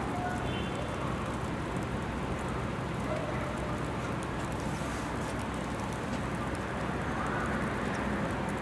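Graupel (small ice pellets) falling steadily, a dense even patter with faint scattered clicks.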